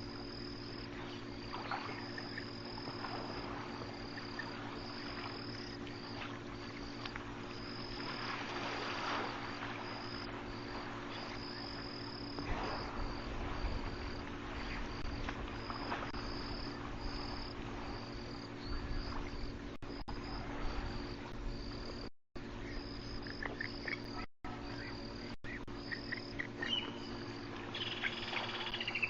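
Insects chirping in a steady, evenly pulsing high trill, over a constant low hum, with a short falling call near the end.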